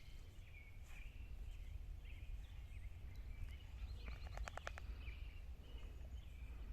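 Birds chirping, with a quick run of about eight clicks about four seconds in, over a steady low rumble.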